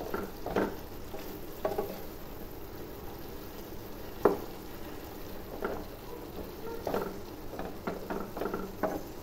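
A wooden spatula stirring thick egg masala gravy in a frying pan over the heat, with a steady sizzle from the pan and irregular scrapes and soft knocks of the spatula against the pan, the sharpest knock about four seconds in.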